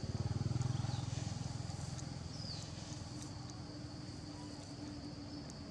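Outdoor ambience: a steady high-pitched insect drone, with a low rumble that is loudest in the first second and then fades away, and a few faint clicks.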